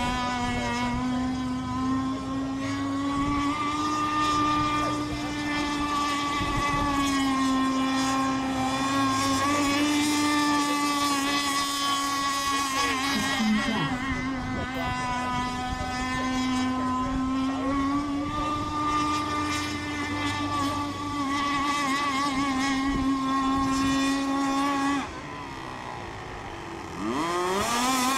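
Radio-controlled racing boat's motor running flat out as the boat speeds around the course, a steady high engine note that wavers slightly. Near the end the sound drops away for a moment, then returns with its pitch rising.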